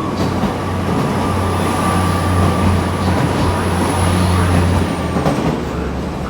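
Hitachi Class 802 bi-mode train running on its diesel engines as it pulls out. It gives a steady low hum with a thin high whine over the running noise, and both drop away about five seconds in.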